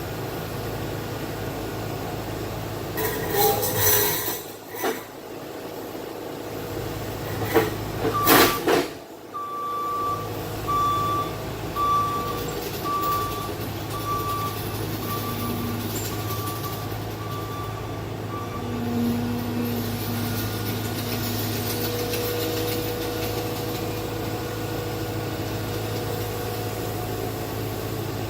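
A machine's engine running steadily, with two loud hissing bursts a few seconds in, then a backup alarm beeping about a dozen times, roughly one beep every 0.7 s, before it stops.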